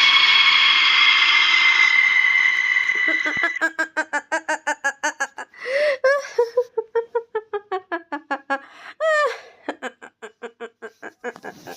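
Monster-character sound effect: a shrill, hissing screech with a steady whistling tone for about three seconds, then a fast, stuttering cackle of about five notes a second that slides lower and thins out near the end.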